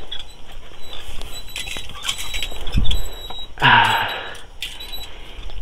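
Charcoal fire crackling under a spit-roasting lechon belly, a steady noisy hiss with scattered small clicks. About two-thirds through comes a brief, louder noise.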